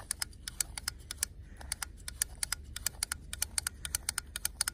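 Small ice-fishing rod reel clicking as line is wound or let out: a quick, uneven run of sharp, light clicks.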